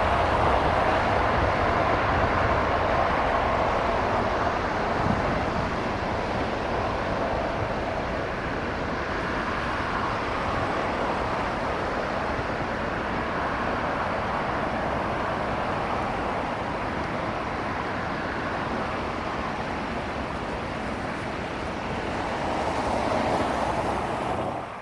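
Lufthansa Boeing 747-8's four GEnx turbofans running at takeoff thrust as the jet lifts off and climbs away: a steady rushing jet noise. It eases slightly after the first few seconds, swells again near the end, and then cuts off abruptly.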